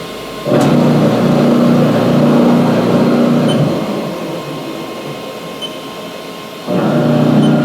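Chip auger on a 2002 Haas VF-2 CNC vertical mill running: a steady motor and gear hum starts about half a second in, dies down after about three seconds, and starts again near the end.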